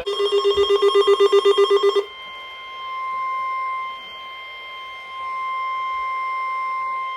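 Weather radio alert: rapid pulsing alarm beeps for about two seconds, then the NOAA Weather Radio 1050 Hz warning alarm tone held steady and swelling louder twice. It signals an incoming warning broadcast, here a tornado warning.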